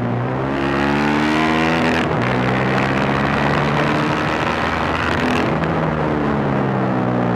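Yamaha YZF-R15's single-cylinder four-stroke engine, fitted with a Daytona aftermarket racing exhaust, pulling hard under acceleration. The revs climb, break for a gear change about two seconds in, then climb again and change once more near the end. Wind rushes past the fork-mounted microphone at speed.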